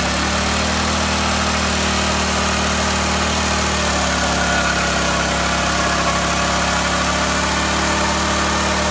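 Predator single-cylinder go-kart engine running at a steady speed while the kart is held in place and its rear tyre spins on the pavement, smoking.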